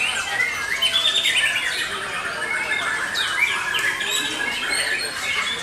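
Several caged white-rumped shamas (murai batu) singing at once: dense, overlapping whistles, fast trills and sliding notes with no break.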